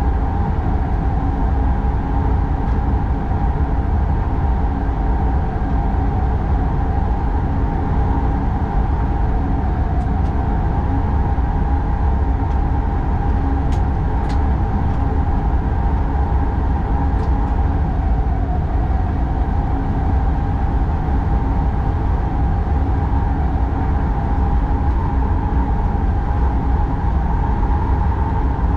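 X40 electric multiple unit running steadily, heard from inside the driver's cab: a continuous rumble of wheels and running gear with a steady hum over it. A few faint ticks come around the middle.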